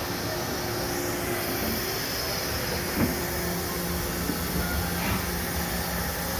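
Nakamura-Tome WTW-150 CNC lathe running under power, a spindle turning a steel workpiece with coolant hissing. A steady hum gives way to a lower tone a little past halfway, with a sharp knock about three seconds in.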